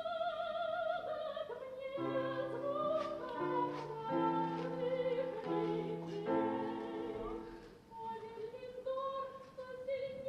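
Opera singing: a solo voice with strong vibrato holds long notes over sustained instrumental chords that change about once a second, thinning out briefly near eight seconds in.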